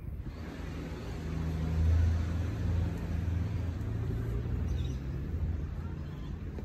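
Low engine drone of a passing motor vehicle, swelling to its loudest about two seconds in and then slowly easing off, its pitch dropping slightly.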